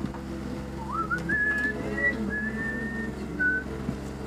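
A person whistling a short tune: a quick upward glide into a few held notes, over a steady low hum.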